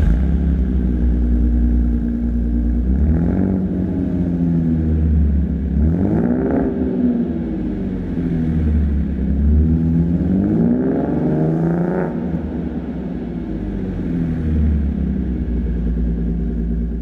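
Roush RS Mustang's 3.7-litre V6 idling and revved three times, about three seconds in, near the middle and about twelve seconds in, each time rising in pitch and falling back to idle.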